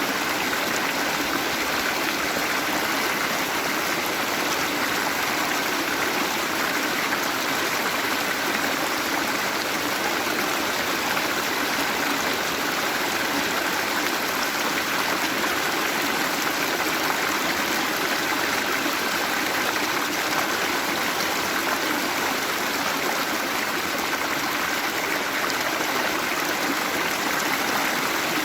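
Waterfall and running water: a steady, unbroken rush of falling water.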